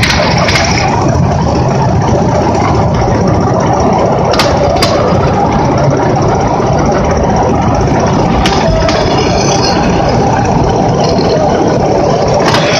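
A motor engine running steadily at a constant speed, with a few short sharp clicks over it.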